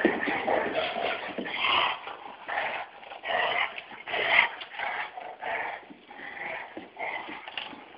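Two dogs play-fighting, giving short play vocalisations over and over, roughly one burst every half second to second.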